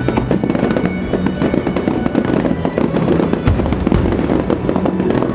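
Fireworks display: a dense barrage of rapid explosions and crackling, bang after bang with no gaps, over a music soundtrack.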